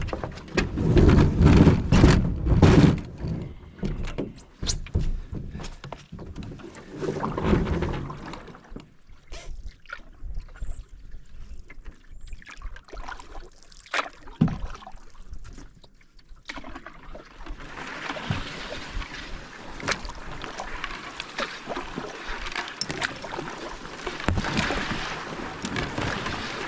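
Canoe being paddled across a lake: heavy thumps and knocks against the hull for the first several seconds, then scattered light clicks, and from a little past halfway a steady rush of water and wind.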